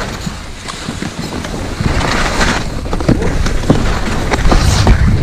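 Skis scraping and hissing over snow during a descent, with short rasping strokes on the turns, and wind buffeting the microphone.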